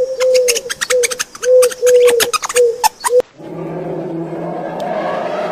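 Chickens clucking in a run of short, repeated calls with sharp clicks between them. About three seconds in, this cuts off abruptly and a different animal's low, rough, drawn-out call follows for about two seconds.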